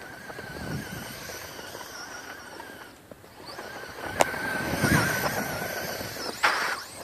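RC car's motor whining with a wavering pitch as it drives through snow, dropping out about three seconds in and coming back louder. There is a sharp click soon after it returns and a short loud rush of noise near the end.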